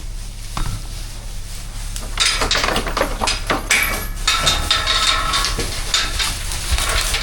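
Metal clinking and rattling of chain and steel pen gate, in irregular knocks with a ringing jingle, busier from about two seconds in, over a steady low hum.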